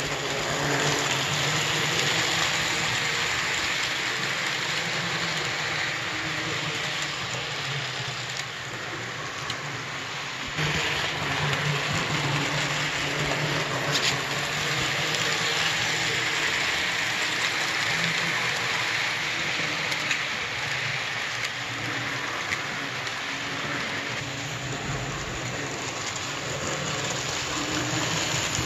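Late-1940s Pennline HO-scale model of a PRR T1 steam locomotive running on the track with its passenger cars: a steady whirring hiss of the model's motor, gearing and metal wheels rolling on the rails, with a faint low hum beneath. The level steps up slightly about ten seconds in.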